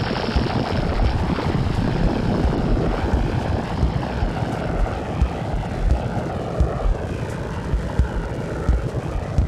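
Drum machine played through delay and pitch-shifting effects pedals, making a dense droning, noisy wash with irregular low thumps. From about halfway through, warbling pitch sweeps rise and fall through it.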